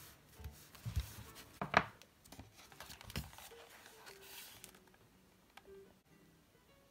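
Hands handling a spiral-bound paper notebook: paper rustles, brushes and a few sharp scrapes and taps, the loudest about two seconds in, growing fainter after about three and a half seconds.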